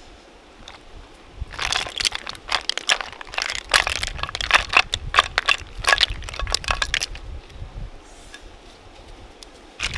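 River snail shells clattering against each other and the clay pot as they are poured, with some water, into a wicker basket: a dense run of clicks from about a second and a half in until about seven seconds, then only a few scattered ones.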